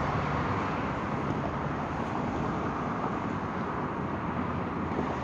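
Steady road traffic noise: a constant rush of passing cars with a low hum underneath.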